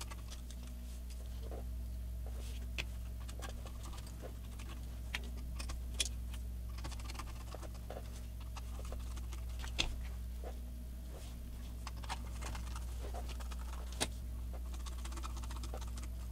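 Hand screwdriver driving small screws into a PC power supply's sheet-steel case: scattered small metallic clicks and scrapes, a few seconds apart, over a steady low hum.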